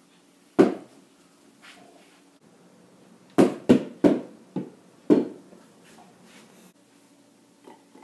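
Sharp knocks of an object hitting a hard surface: one about half a second in, then five in quick, uneven succession from about three and a half to five seconds in.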